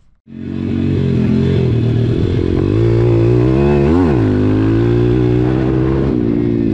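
Single-cylinder four-stroke engine of an SSR pit bike heard from on board while riding a dirt trail, running under steady throttle. Its pitch rises and falls quickly about four seconds in and eases down slightly near the end.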